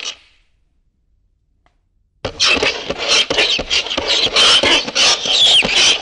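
Fingernails scraping on a chalkboard: a run of short, shrill screeching strokes that starts about two seconds in, after a pause, and goes on for about four seconds. A previous scrape cuts off at the very start.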